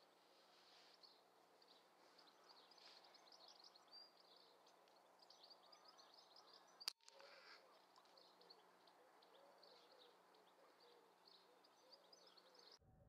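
Faint background of small birds chirping, broken about halfway through by a single sharp crack of an air rifle shot.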